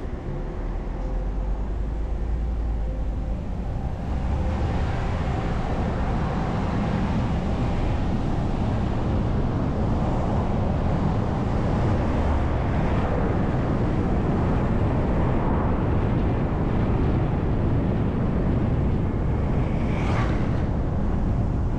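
City bus idling with a low steady engine note, then pulling away about four seconds in, after which the engine and road noise run louder and steady. Near the end a scooter passes close by with a brief rising and falling sound.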